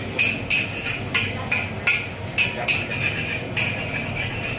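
Metal spatula striking and scraping a wok while stir-frying char kway teow noodles: about seven irregular clanks, each ringing briefly.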